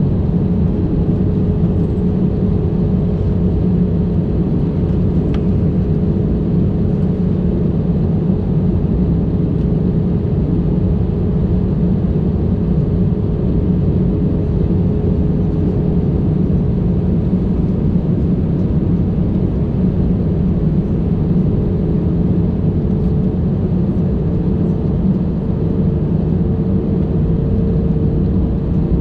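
Airbus A320 cabin noise on approach with the flaps down, heard from a window seat over the wing: a loud, steady roar of engines and airflow. A thin steady hum runs through it and rises slightly in pitch near the end.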